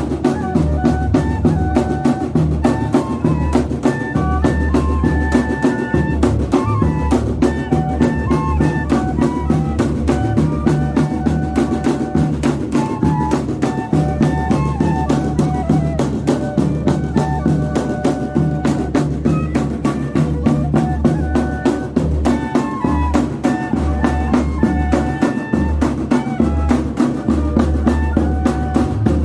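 Banda de pífanos playing: two cane fifes carry a high melody in thirds over a zabumba bass drum and snare drum keeping a dense, steady beat.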